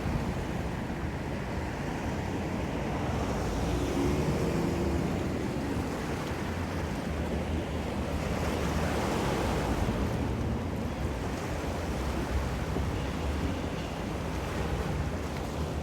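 Ocean surf washing in, swelling twice, over a steady low rumble of wind on the microphone.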